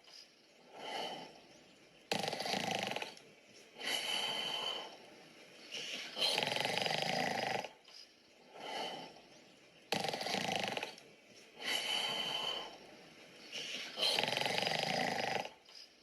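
Recorded human snoring played back: a loud snore about every four seconds, each lasting about a second and a half, with a softer breath between snores.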